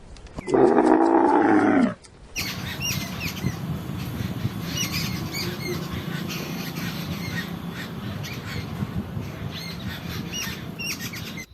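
A large animal gives one loud, drawn-out roar that ends about two seconds in. It is followed by an outdoor wildlife scene of many short, repeated high-pitched bird chirps over a steady rustling background.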